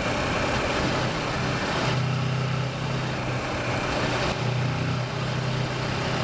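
Kawasaki Versys motorcycle engine running while riding along, its note shifting slightly, with steady wind rush over the microphone.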